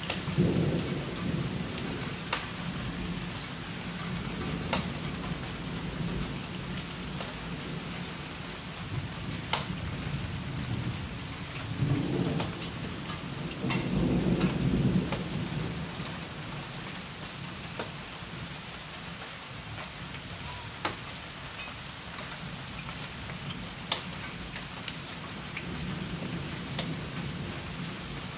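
Steady rain during a thunderstorm, with low rolling thunder swelling up near the start and again from about twelve to sixteen seconds in. Scattered sharp ticks stand out above the rain every few seconds.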